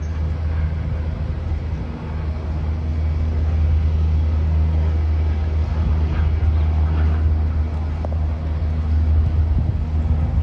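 Aircraft engines giving a loud, steady, deep rumble, with a faint hum tone above it.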